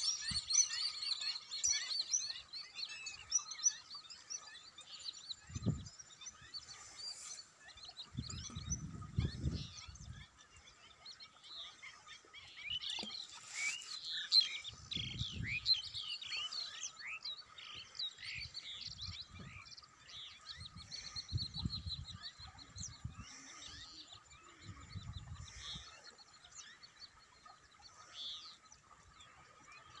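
Many small birds chirping and twittering together, busiest at the start and again about halfway through, with a few short low rumbles.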